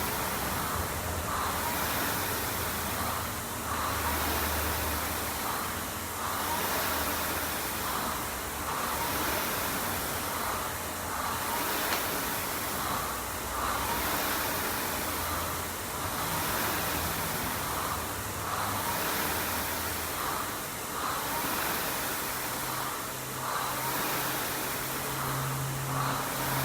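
Rowing machine's flywheel whooshing, swelling and fading about every two seconds with each stroke.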